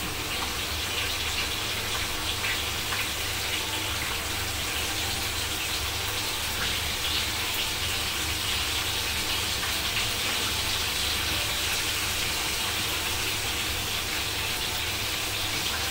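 Breaded chicken breasts sizzling in hot oil in a frying pan: a steady hiss with faint scattered crackles, the breasts done and golden on both sides.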